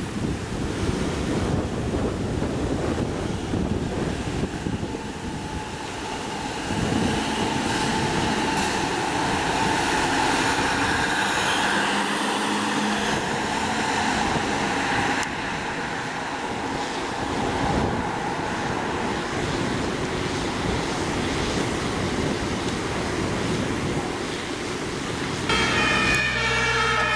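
Road traffic with the two-tone siren (Martinshorn) of fire-service vans on an emergency run, at times faint under the traffic noise. Near the end a louder siren with steady tones comes in suddenly.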